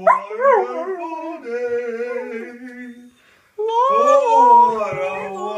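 Samoyed howling in long, wavering howls, the pitch bending up and down at the start. A short break about three seconds in, then a second howl.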